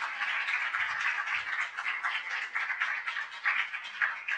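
Audience applauding, a dense patter of many hands clapping that begins to die away at the end.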